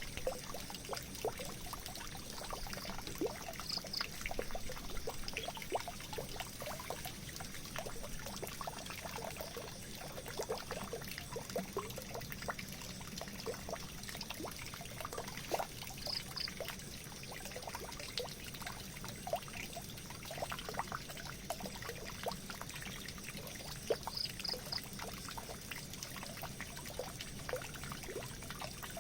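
Water pouring and trickling into a drain: a steady wash with many small drips and splashes. A short high double chirp comes three times.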